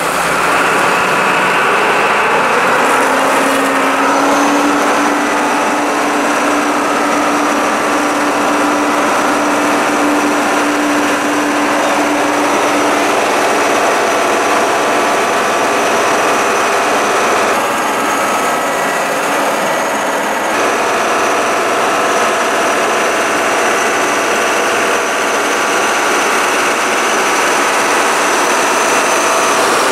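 Sea tractor's engine and drive running steadily as it wades through the sea, with water churning around its wheels; a steady loud drive noise with a faint whine.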